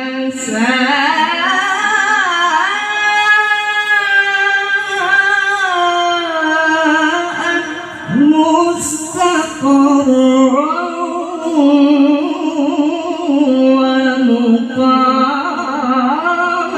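A male qari reciting the Quran in melodic tilawah style into a handheld microphone, drawing out long ornamented phrases on high, wavering notes. There is a short pause for breath about eight seconds in.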